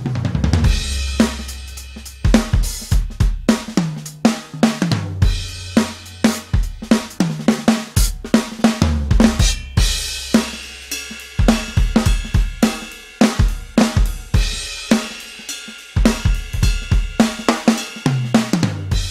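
Drum kit playing fast beats and fills: kick drum, snare and hi-hats, with crash cymbals about half a second, ten seconds and sixteen seconds in, over deep sustained bass notes.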